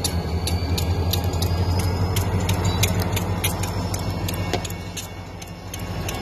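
Railroad crossing warning bell ringing in rapid, evenly spaced strokes over a steady low engine rumble, which eases a little about four and a half seconds in.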